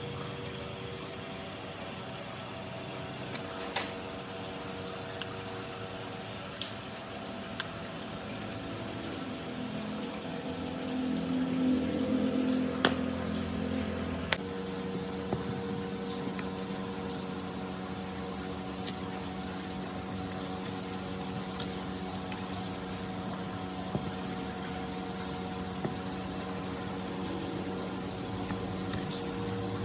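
Steady machine hum with scattered light metallic clicks and taps; the hum changes abruptly about halfway through.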